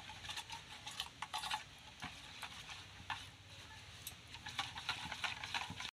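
A metal spoon stirring and beating thick egg and gram-flour batter in a stainless steel bowl, with irregular light clicks and scrapes of spoon against steel.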